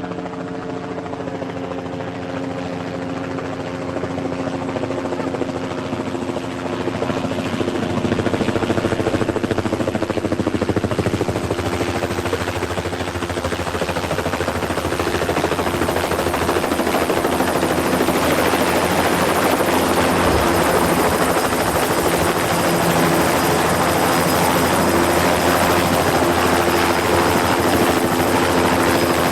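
An engine running with a steady drone that grows louder over about the first eight seconds, then holds at a steady level.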